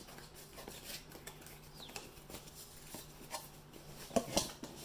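Cardboard shipping box being opened and handled: faint scattered rustling, scraping and light clicks, with a short squeak about two seconds in and two louder knocks near the end.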